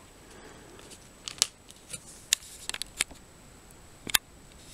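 Handling noise: a scattered run of about ten small, sharp clicks and crinkles, the loudest about a second and a half in and just after four seconds in.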